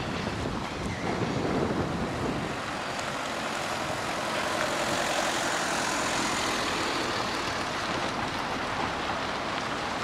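Jet airliner passing overhead on its approach to land: a steady wash of jet engine noise, a little louder after the first couple of seconds.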